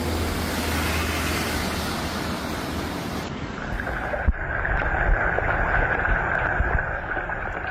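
Steady rushing of floodwater. About halfway through it cuts abruptly to a narrower, steadier rushing sound broken by occasional low thumps.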